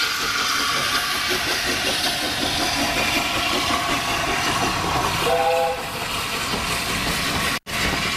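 Steam hissing steadily from the front end of a standing LNER A4 Pacific, with a train of coaches rolling past on the next track. A short whistle toot of about half a second sounds just after five seconds in, and the sound drops out for an instant near the end.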